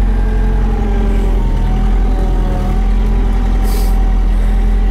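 Trackless MT5 municipal tractor's diesel engine running under load as it drives, heard loud from inside the cab, with a higher whine that wavers slightly in pitch. A brief hiss comes about three and a half seconds in.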